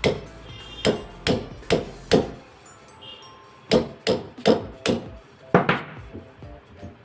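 A hammer tapping a pin punch to drive the trigger pin out of an IOF .22 LR rifle: ten sharp taps in two runs of five, with a pause of about a second and a half between the runs.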